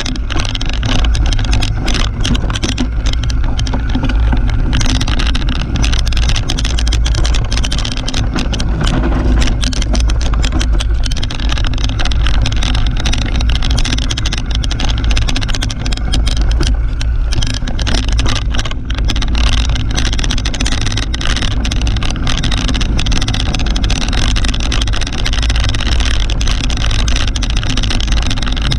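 Mountain bike ridden fast down a dirt singletrack, heard through a GoPro action camera's microphone: a heavy, steady wind rumble over the sound of the tyres on dirt, with frequent small rattles and knocks from the bike going over bumps.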